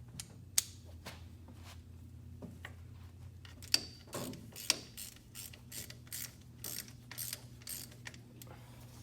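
Ratchet wrench clicking in short runs of strokes, tightening bolts on a hydraulic quick-coupler mount, with a few sharp metal clinks among them. A steady low hum runs underneath.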